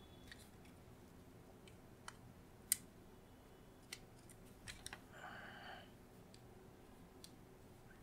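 Faint scattered clicks and taps of a precision screwdriver and plastic mouse parts being handled, with one sharper click nearly three seconds in and a brief scrape about five seconds in.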